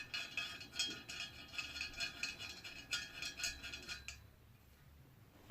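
Metal exhaust parts clinking and rattling against each other as they are handled, with a rapid run of small knocks and a ringing tone after each. It stops about four seconds in.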